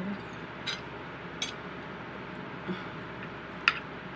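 A few light, separate clicks of utensils against a plate, spread out over steady room hiss.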